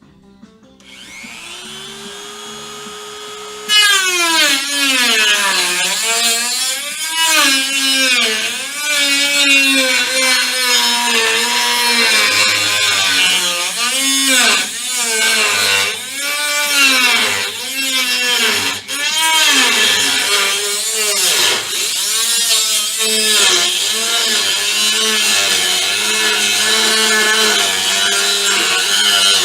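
Dremel rotary tool spinning up, then cutting into sheet metal, its whine dipping in pitch and recovering again and again as it is pressed into the cut.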